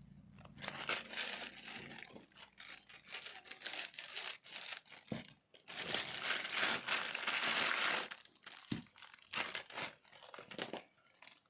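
Parcel packaging crinkling and tearing as it is opened by hand, in irregular bursts with a longer stretch of continuous rustling around the middle.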